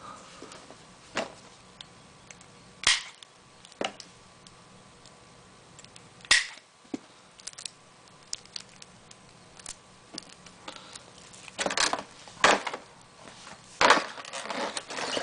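An HDMI cable being handled. Its plastic connector ends and tip caps make sharp clicks and knocks, a few single ones early, then denser clusters of clicking and rustling toward the end.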